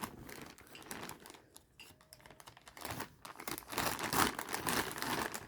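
Packaging being handled and unwrapped, with irregular crinkling and rustling that grows busier and louder about halfway through.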